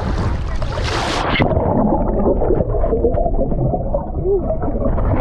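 Surf and wind noise on the microphone, then about a second and a half in the sound turns suddenly muffled as the microphone goes under the sea water. After that comes churning underwater gurgling and bubbling with a few short wavering tones.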